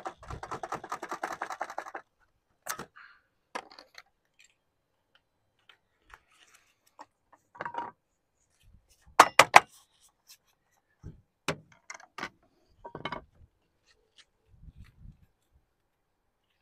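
Hand tools working sheet lead: a run of quick clicks at first, then scattered sharp clicks and knocks, the loudest a quick cluster of four clicks about nine seconds in, with a few dull low knocks near the end.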